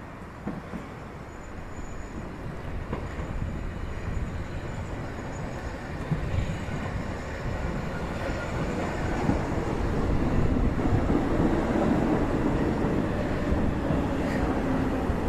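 Hamburg S-Bahn class 472 electric multiple unit running into the station, its wheel and motor noise growing steadily louder as the cars pass below.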